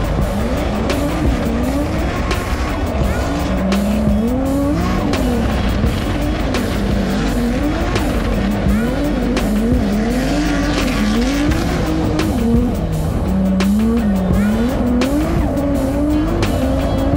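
Drift car engine revving hard under load, its pitch climbing and falling again and again, about once a second, as the throttle is worked, with tyres squealing through the slide.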